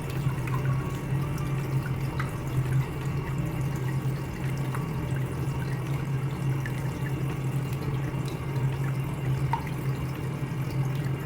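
Water running and dripping through a urinal as its cleaned solenoid flush valve opens: the sign the valve is working again after its sand-clogged filter was cleared. A steady low hum runs underneath.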